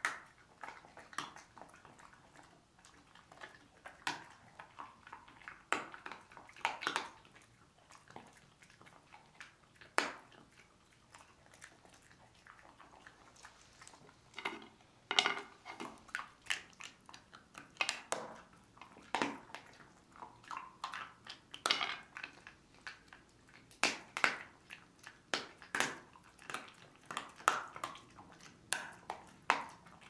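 A dog chewing and crunching dental chew sticks: irregular crisp crunches and bites, coming thicker in the second half.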